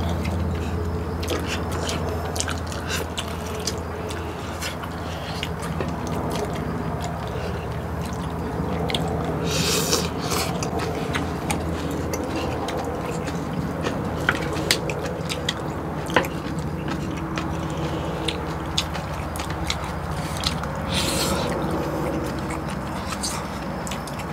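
Close-up eating sounds: chewing and sucking meat off gamjatang pork back bones, with chopsticks clicking against bowls and plates. Two louder slurps stand out, one midway and one near the end, over a steady low hum.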